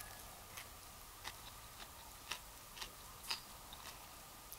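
A person chewing a mouthful of Subway sandwich on herb-and-cheese bread: faint, scattered mouth clicks and crunches, roughly one every half second, over a steady low hiss.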